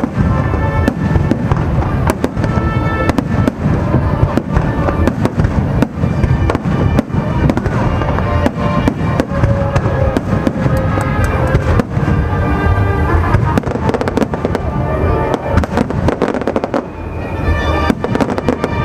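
Aerial fireworks bursting in a rapid, continuous barrage of bangs and crackles, many a second, with music playing underneath. The bursts ease off briefly near the end.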